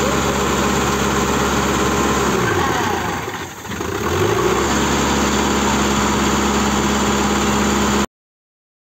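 Sonalika tractor's diesel engine running steadily; about two and a half seconds in its revs sag and then climb back to the same speed. The sound cuts off suddenly near the end.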